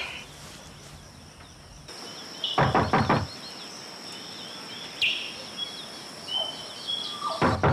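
Knocking on a wooden door: a quick run of four or five knocks about two and a half seconds in, and another run near the end. Birds chirp throughout, over a steady high-pitched tone.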